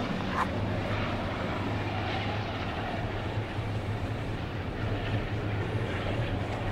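Airliner flying low on its landing approach: a steady rumble of engine noise.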